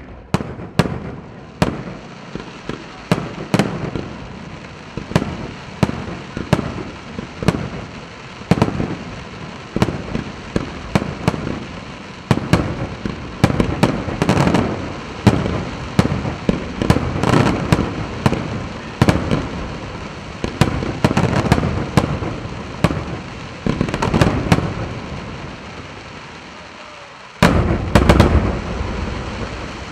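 Daytime aerial fireworks shells bursting in quick succession, one or two loud bangs a second, each echoing. After a short lull near the end comes one very loud, deep boom.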